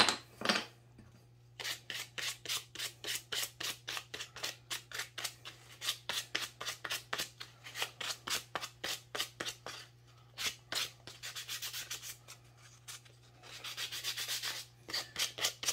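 Pine puzzle piece being hand-sanded with sandpaper to soften its sharp edges: quick scratchy back-and-forth strokes, about four to five a second, with a few short pauses and a stretch of continuous scrubbing near the end.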